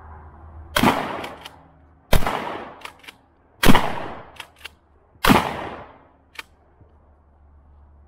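Stevens 12 gauge pump-action shotgun firing four rounds of 00 buckshot, one shot about every second and a half. After each of the first three shots come a pair of short clacks as the pump action is cycled.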